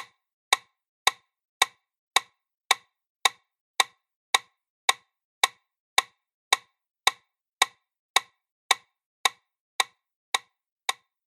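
A metronome-like click track: sharp, identical clicks about twice a second (roughly 110 a minute), evenly spaced, with silence between them.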